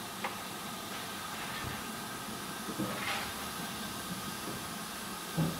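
Steady hiss of steam from an LMS Black 5 steam locomotive standing in steam, with a few brief knocks; the loudest is a low thud near the end.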